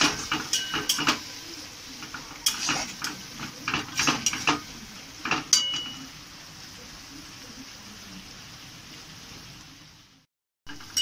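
Metal spatula scraping and clinking against a wok as chopped onions and ginger-garlic-green chilli paste are stirred, over a steady sizzle of frying oil. The clinks stop about six seconds in, leaving only the sizzle, and the sound cuts out for about half a second near the end.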